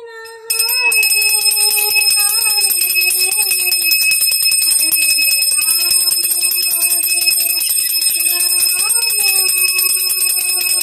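Small brass puja hand bell (ghanti) rung continuously, a steady shimmering ring starting about half a second in, rung as part of the lamp offering. Beneath it a slow, wavering sung or hummed tune.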